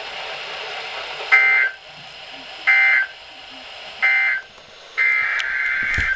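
Emergency Alert System SAME data tones, a harsh warbling digital burst: three short bursts about 1.4 s apart, the end-of-message code closing an alert, then a longer burst about five seconds in that begins the header of the next alert. A steady hiss sits under them.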